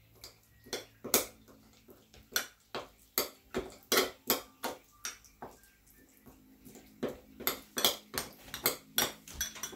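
Kitchen utensils knocking and clinking against dishes and a worktop, about twenty irregular sharp taps, some with a short ring.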